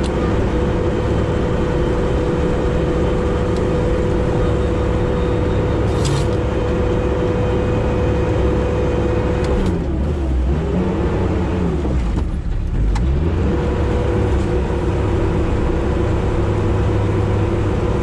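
Sherp amphibious ATV's diesel engine running under load with a steady whine, heard from inside the cab while it pushes through broken river ice. About ten seconds in, the revs drop and climb twice before settling back to a steady pitch.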